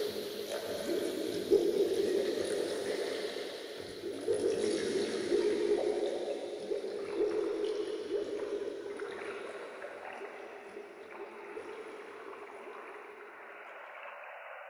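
Flowing, gurgling water that fades out gradually.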